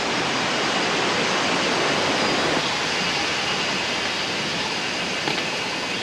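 Steady rush of a mountain stream's flowing water, a continuous even noise that fades slightly toward the end.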